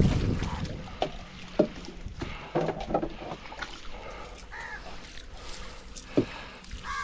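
Scattered sharp knocks and light water sounds from a small fishing boat being worked along its nets, with a crow cawing twice in the second half.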